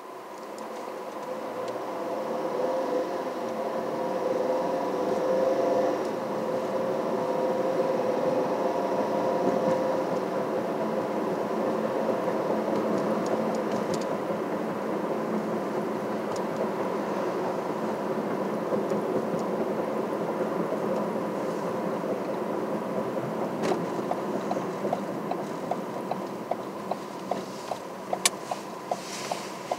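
Road and engine noise inside a moving car, rising as the car picks up speed at the start and then holding steady. Near the end the turn-signal indicator starts clicking steadily, about one and a half clicks a second.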